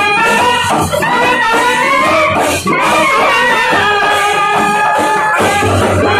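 A brass band of trumpets and a euphonium playing a loud, sustained melody, with chenda drums beating underneath.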